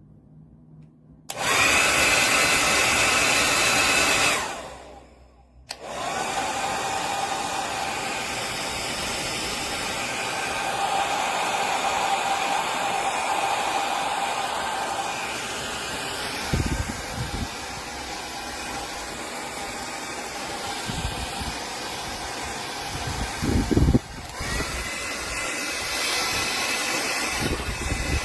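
Revlon 1875W compact folding-handle hair dryer running: it starts about a second in, winds down and stops a few seconds later, then starts again and runs on with a steady blowing whine. A few low thumps come through, and the whine shifts about four seconds before the end.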